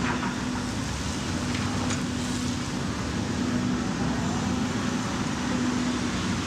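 A machine's engine running steadily, with a constant low hum.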